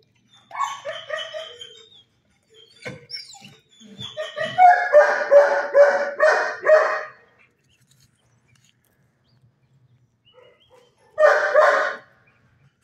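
Dog barking in three bouts of quick, repeated barks: a short one about half a second in, the loudest and longest from about four to seven seconds, and another near the end, with a few sharp knocks in between.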